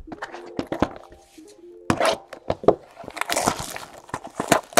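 Cardboard trading-card boxes knocking and clicking as they are handled, then a foil card-pack wrapper crinkling and crackling in the hands from about three seconds in.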